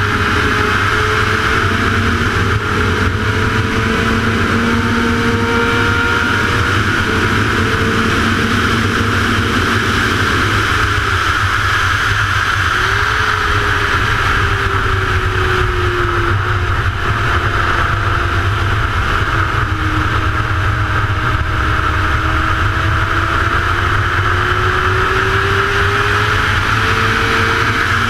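A middleweight sport bike's engine running at high revs at racing speed, heard from onboard under a heavy rush of wind over the microphone. The engine note drops about ten seconds in as the throttle comes off for a corner, then climbs again as the rider gets back on the throttle, rising most over the last few seconds.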